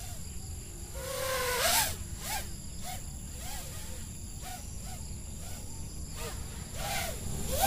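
Racing quadcopter's motors and Dalprop T5051C three-blade propellers whining at a distance, the pitch rising and falling with repeated throttle punches about twice a second. A louder rush comes briefly about a second and a half in and again at the end.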